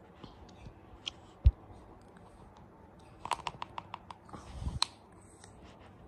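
Clicks and taps of a small clear round plastic piece being handled close to the microphone. There is a single low thump about a second and a half in, then a quick run of about six clicks just past three seconds, and a rustle ending in a sharp click near five seconds.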